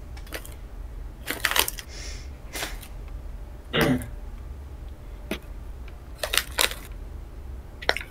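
Irregular sharp clicks and knocks, about seven of them, with a heavier thud about four seconds in, over a steady low hum. They sound like handling or tapping noise picked up by a call participant's microphone.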